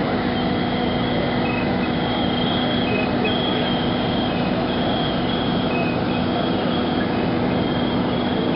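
Fire apparatus diesel engines running steadily at high revs to drive the pumps feeding the water streams, with a constant low hum. Over the engines, high-pitched electronic tones repeat about once a second, stepping between two notes.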